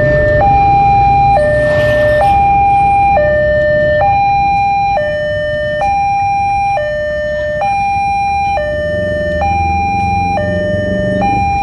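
Railway level-crossing warning alarm sounding an electronic two-tone signal, a low and a high tone alternating about once a second. It signals an approaching train.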